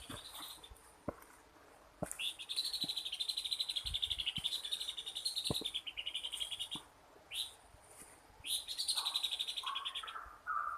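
A bird calling in rapid, high trills, repeated three times: a long one of several seconds, a brief one, then another of about a second and a half. Short whistled notes from a second bird come in near the end, with a few faint clicks.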